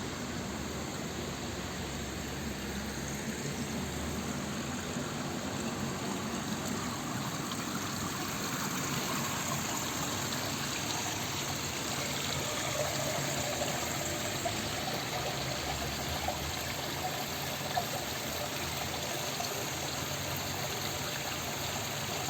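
Water from a burst water-supply main gushing and cascading in a steady rush, with a few faint knocks in the second half.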